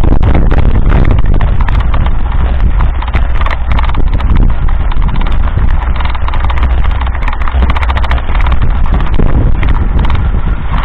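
Mountain bike riding over a rough sandy dirt track, filmed on a bike-mounted action camera: wind buffets the microphone with a heavy steady rumble while the bike and camera mount rattle and knock over the bumps in a dense, irregular clatter.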